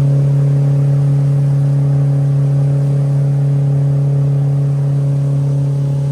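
Motorboat engine running at a steady speed as the boat cruises on the river, a constant drone with an unchanging pitch.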